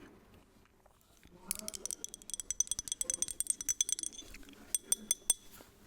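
Rapid tapping on a glass perfume bottle: a fast run of ringing glassy clinks lasting about two and a half seconds, then a few sharper taps near the end.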